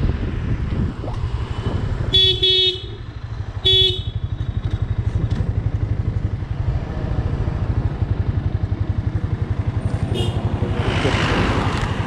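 Motorcycle engine running steadily while riding, with a horn honking twice about two seconds in: a toot of about half a second, then a shorter one a second later.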